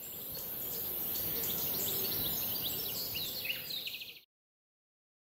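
Several birds chirping and trilling over a steady hiss, cutting off suddenly about four seconds in.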